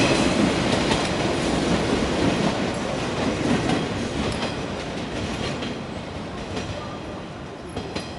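Electric commuter train running away along the track, its wheels clicking over the rail joints. The rumble fades steadily as it recedes.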